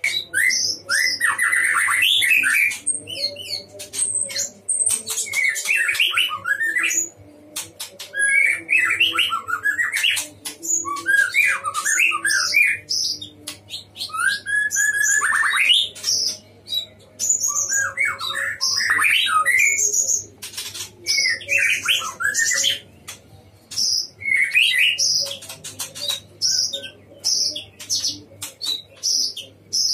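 White-rumped shama in full, vigorous song: a string of varied whistled phrases every second or two, with many sharp clicking notes between them.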